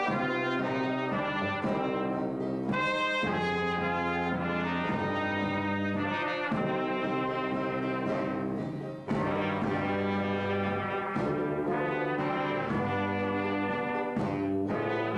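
A small band of trumpet, trombone, sousaphone, banjo and bass drum plays a slow tune in long held notes, pausing briefly about halfway through.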